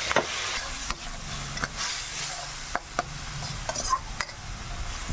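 Pork, onion and garlic frying in soy sauce in a pan, sizzling steadily, while a utensil stirs the mixture and knocks against the pan with irregular clicks.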